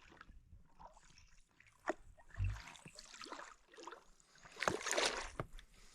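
Knocks against a small rowboat and water splashing and dripping as a tangled fishing-trap line is pulled up from the lake. There is a dull thump about two and a half seconds in and a louder splashing rush near five seconds.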